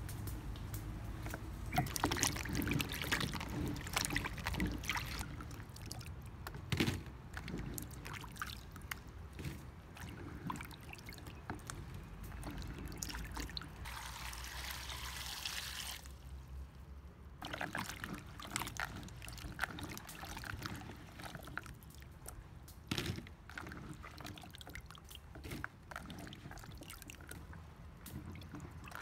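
Hands sloshing cut sweet potato pieces around in a plastic basin of water and lifting them out into a colander, with small knocks and splashes. A little past halfway, water is poured from a jug over the pieces for a few seconds and stops suddenly.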